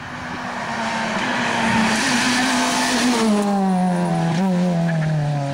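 Rally car approaching flat out on a narrow lane, growing louder until it passes close about three seconds in. The engine note then drops in pitch as it goes away into the bend.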